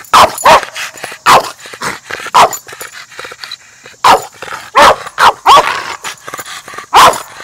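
A boxer dog barking hard and repeatedly: about nine loud, sharp barks, irregularly spaced, some coming in quick pairs.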